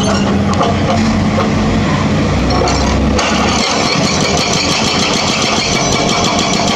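Hitachi Zaxis 210F excavator's diesel engine running, then about three seconds in its hydraulic breaker starts hammering the concrete road in rapid, even blows.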